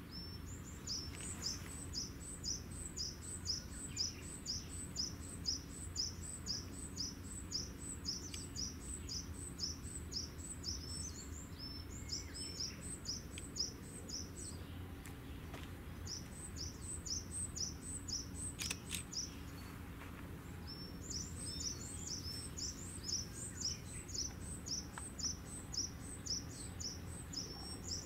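A small bird repeats a short, high, falling chirp about two or three times a second, in long runs with a couple of short pauses, over a low steady hum.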